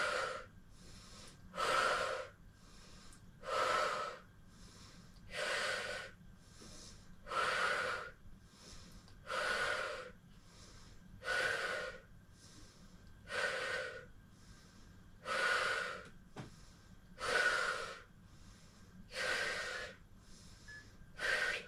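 A woman breathing hard and rhythmically through the mouth under exertion: a strong breath about every two seconds with a fainter one between, paced to each leg extension.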